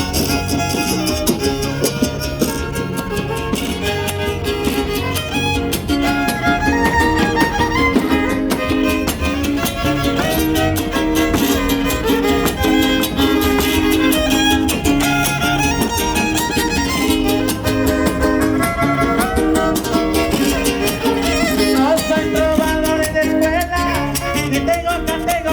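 A huasteco trio plays an instrumental huapango passage with no singing. The violin carries the melody, with slides between notes, over the steady strumming of the jarana huasteca and huapanguera guitars.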